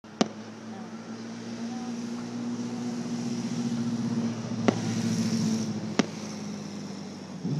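Aerial firework shells going off: three sharp bangs, one just after the start, one about two-thirds of the way in and one a second later. Under them runs a steady motor hum that fades out shortly before the last bang.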